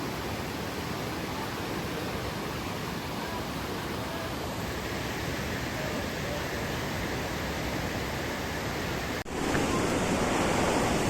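Steady rushing of fast-flowing stream water, growing louder after an abrupt cut about nine seconds in.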